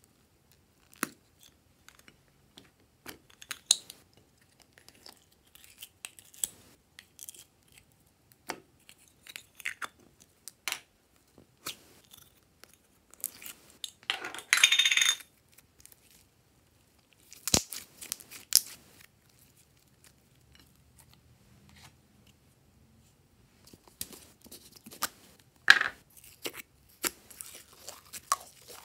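Glossy slime being handled and squeezed out of plastic shell-shaped containers: scattered small plastic clicks and sticky slime crackles, with a longer tearing sound about halfway through and a sharp click a few seconds later.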